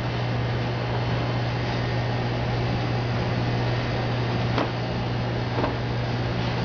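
Steady low mechanical hum with a hiss, like ventilation or air handling. Two light knocks come about four and a half and five and a half seconds in, as an insulated refrigerant plate is handled into the shipper.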